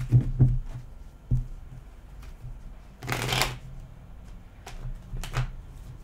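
A deck of tarot cards being shuffled by hand in several short bursts, with a longer stretch of shuffling about three seconds in.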